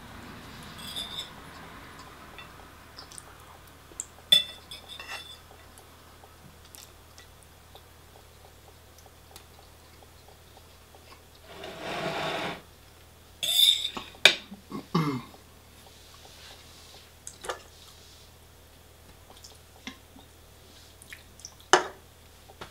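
Scattered clinks and scrapes of cutlery against dishes and food containers during a meal. There is a louder noise lasting about a second near the middle, and a quick run of sharp clicks just after it.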